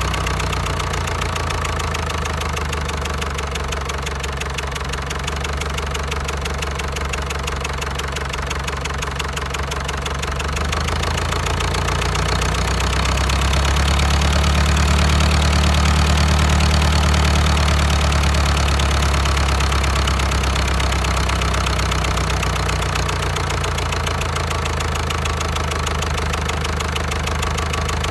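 Diesel engine running steadily. It grows louder and fuller from about twelve seconds in and settles back a few seconds later, as when the injection pump setting or throttle is changed.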